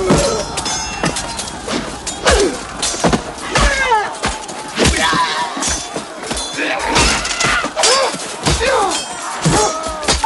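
Battle sound effects of hand-to-hand fighting: repeated sharp clashes and heavy thuds of swords, shields and bodies, mixed with men yelling, over a music score.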